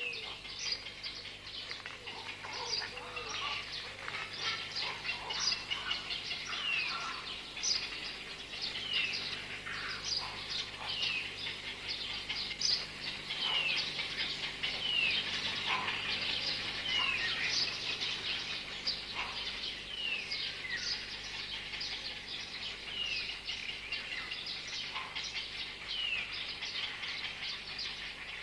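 Songbirds singing together, a dense chorus of high chirps with a short falling whistle repeated every second or two.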